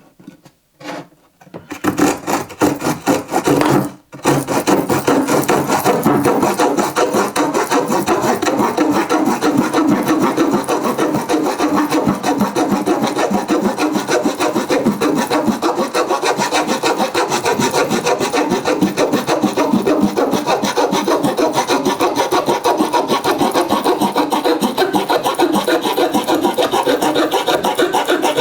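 Rapid, steady back-and-forth rasping of the saw blade of a Victorinox Swiss Army knife, after a few light clicks at the start.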